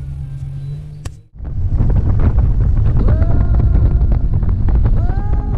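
A steady low hum, then a sudden cut about a second in to the loud rush of a motorboat running at speed, its outboard engine, the water and wind on the microphone together. Music comes in over it, with gliding notes near the end.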